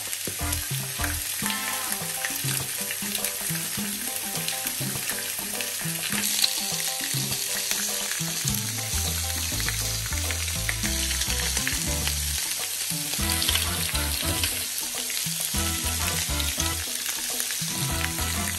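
Bacon strips and halved garlic cloves sizzling steadily as they fry in a grill pan on high heat.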